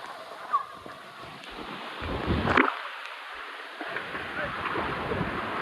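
Steady rushing of a waterfall, with wind buffeting the microphone in low gusts, the strongest about two and a half seconds in and again near the end.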